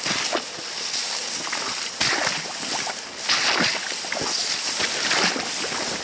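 Footsteps pushing through tall dry grass and stems: a steady rustle with irregular crackles and snaps.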